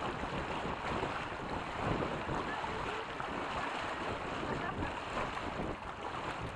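Wind buffeting the microphone over the splash and rush of water along a sailboat's hull under way.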